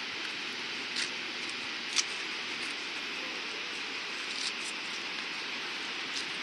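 Steady rushing roar of a waterfall and white-water river far below in a canyon. A few small sharp clicks sit on top, the loudest about two seconds in.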